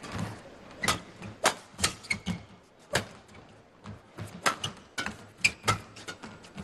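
Badminton rackets striking the shuttlecock again and again in a fast doubles rally: sharp, irregular hits, often less than half a second apart.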